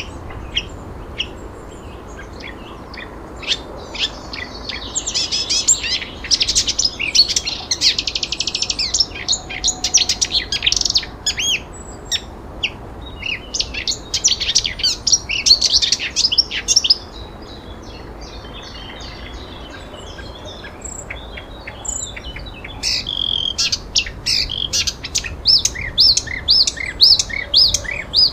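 Several songbirds chirping and trilling in quick high notes, with a quieter stretch in the middle before the calls pick up again.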